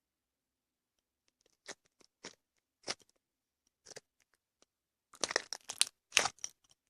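Clear glue slime being squeezed, stretched and poked by hand, giving short wet crackling pops: a few single ones, then a quick, louder run of them near the end.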